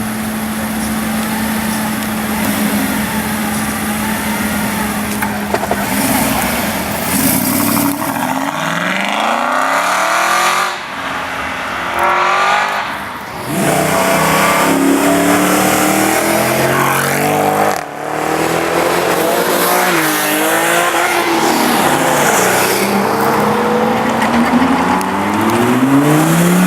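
Aston Martin V8 Vantage's V8 engine running steadily, then accelerating hard from about eight seconds in, the revs climbing and dropping several times through gear changes.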